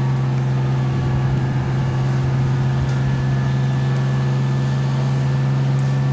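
Fire truck engine running steadily, a constant low drone that holds at one pitch.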